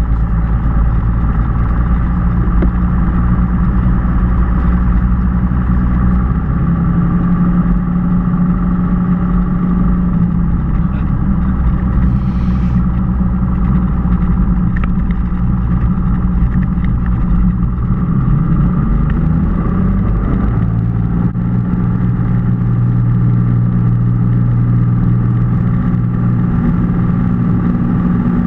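Cessna 182's six-cylinder piston engine and propeller running steadily, heard inside the cabin. Its note shifts about twenty seconds in as the power changes.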